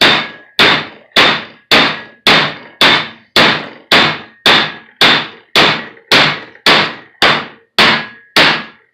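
Steady hammer blows on the steel yoke of an F-250 drive shaft's CV head, about two a second, each with a short metallic ring. The yoke is struck while held up by its flange to walk the universal-joint bearing caps out of their bores.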